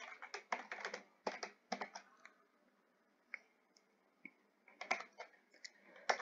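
Typing on a computer keyboard: quick runs of keystrokes, a gap of about two and a half seconds with only a few single taps, then another run near the end.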